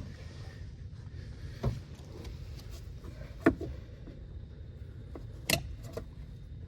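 Three sharp clicks or knocks, about two seconds apart, from hands and tools working on the engine's ignition coils, over a steady low hum.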